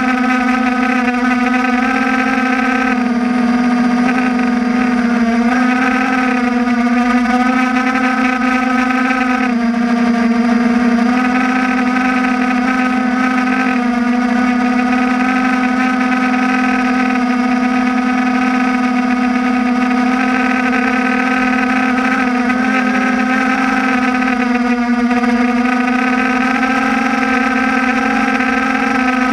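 Drone's propellers and motors whining steadily, recorded by the drone's own onboard camera in flight. The pitch dips and rises slightly a few times.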